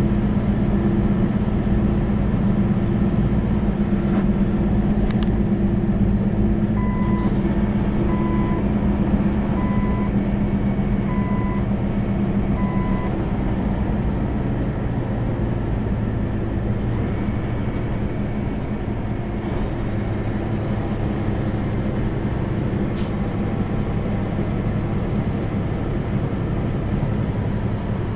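Semi-truck cab at highway speed: steady diesel engine and road drone. About seven seconds in comes a run of about six short electronic beeps, roughly one a second.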